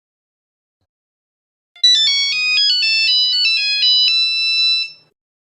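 Nokia mobile phone ringtone: a quick monophonic run of about a dozen electronic beeping notes, ending on one longer held note that cuts off.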